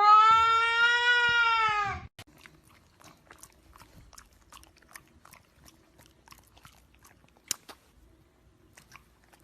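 A cat's single long meow, about two seconds, rising a little and falling at the end, followed by faint scattered small clicks and ticks.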